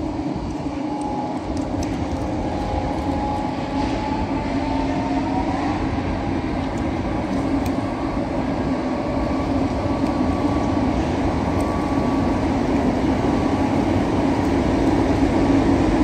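A truck's engine running steadily, a low hum with a fainter whine that rises a little about five seconds in.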